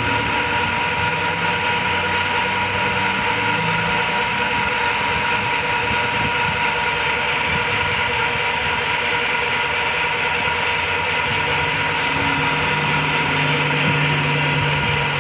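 Old metal lathe running steadily in a machine shop: a constant mechanical hum with a steady high whine, and no cutting or impacts.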